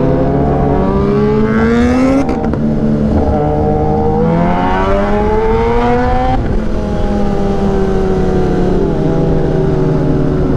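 1000 cc inline-four superbike engine accelerating hard through the gears. The pitch climbs, drops at an upshift about two seconds in with a brief crack, climbs again to a second upshift about six seconds in, then runs at a steadier pitch.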